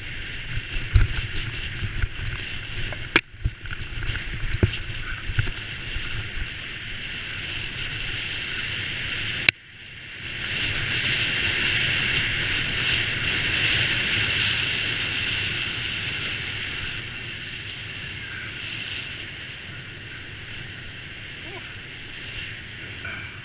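Mountain bike descending a rocky trail: wind rushing over the bike-mounted camera microphone, with the tyres and frame knocking and rattling over stones. About nine and a half seconds in, after a sharp click, the sound turns to a steadier rush of wind and tyre noise as the bike rolls along a smoother track.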